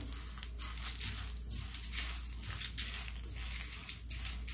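A spatula stirring whole spices (coriander seeds, bay leaves, dried red chillies) in a dry nonstick pan while they dry-roast: an irregular run of small scrapes and rattling clicks as the seeds and dry leaves slide over the pan.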